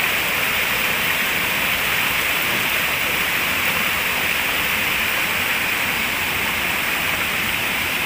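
Steady, even rush of a stream pouring over boulders at the top of a waterfall.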